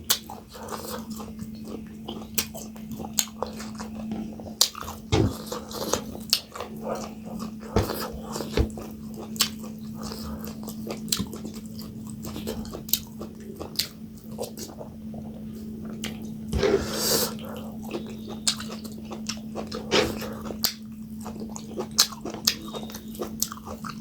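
Close-miked eating: chewing, biting and wet mouth smacks as a meal of millet dhido with buffalo sukuti and pumpkin curry is eaten, with many short clicks. A steady low hum runs underneath.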